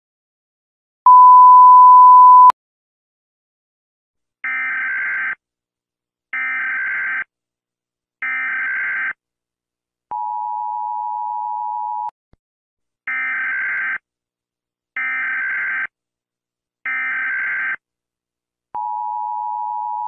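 Emergency Alert System tones. A loud, steady, one-pitch beep lasts about a second and a half. Then come three short bursts of screeching SAME data-header tones, the two-tone attention signal for about two seconds, three more data bursts, and the two-tone attention signal again near the end.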